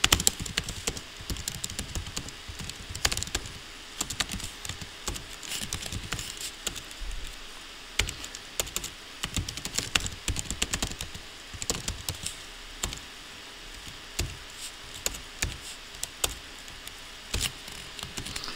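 Computer keyboard typing in irregular bursts of keystrokes, with short pauses between them.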